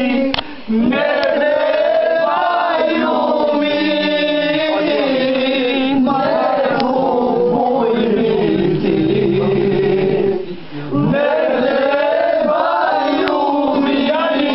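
A group of men singing loudly together without instruments, a folk song in unison, breaking off briefly twice for breath.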